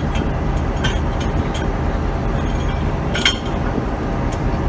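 Diesel locomotive engine idling with a steady low rumble, with short metallic clinks from the coupling gear between two locomotives, the loudest a little after three seconds in.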